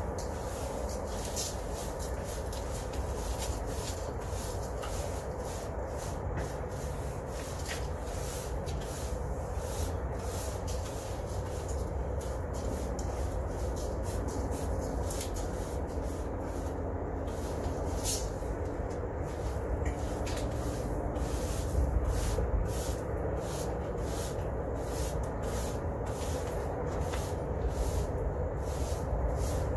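Bristle brooms sweeping concrete dust and grit across a concrete slab, with repeated short brushing strokes.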